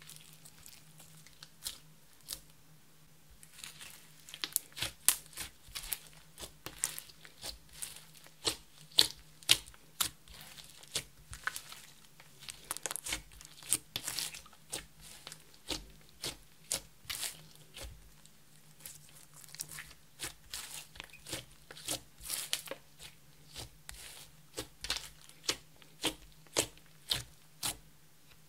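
Hands kneading, stretching and poking glittery green slime, giving irregular wet, sticky clicks and pops, several a second. They start a few seconds in, after a quieter stretch.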